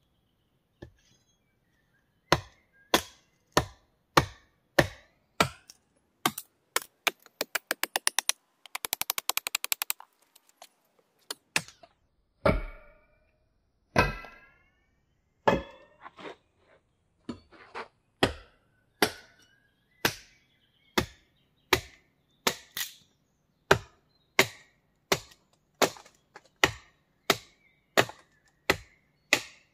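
Hammer driving nails into wood: evenly spaced sharp blows, about one and a half a second, with a fast run of light taps a third of the way in, and a few blows near the middle that ring.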